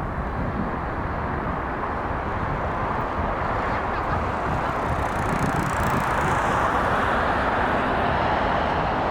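Boeing 777-300ER's two GE90-115B jet engines at takeoff thrust: a steady, broad rush of noise that grows a little louder about five seconds in.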